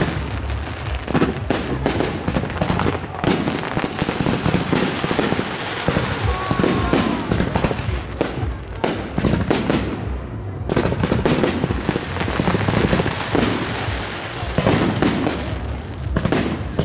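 Fireworks display: a dense run of overlapping bangs and crackles from bursting shells, with a short lull about ten seconds in.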